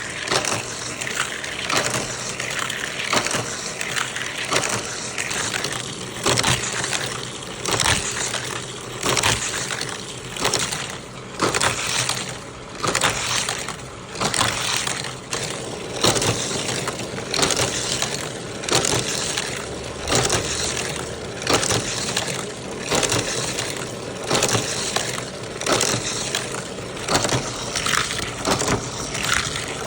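Plastic toy cars and track pieces of a playset being handled and run along the track: continuous rattling and scraping with repeated sharp clacks about once or twice a second.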